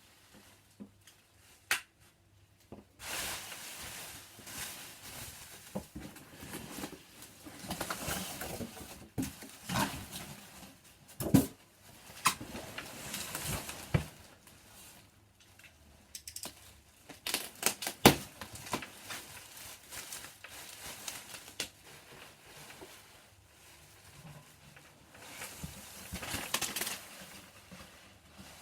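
Protective packaging being unwrapped by hand: irregular rustling, crinkling and tearing, with occasional sharp clicks and knocks, the loudest about two-thirds of the way through.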